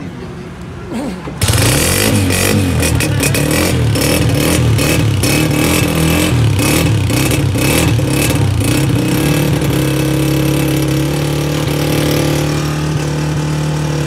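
Honda CG125's single-cylinder four-stroke engine kick-started on choke, catching at once about a second and a half in. It runs unevenly for several seconds with its pitch rising and falling, then settles into a steady idle near the end. This is a cold first start of a new bike.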